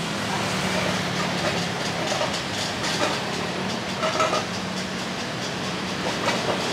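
Busy street traffic of motorbikes and cars passing close by: a steady mix of engine and tyre noise with a low engine hum underneath.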